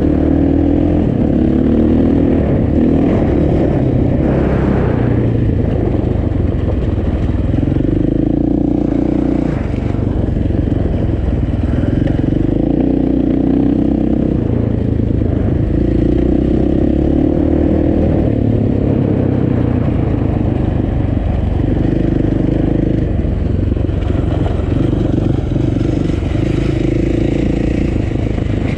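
Motorcycle engine running under way on a trail, the throttle opening and easing off every few seconds.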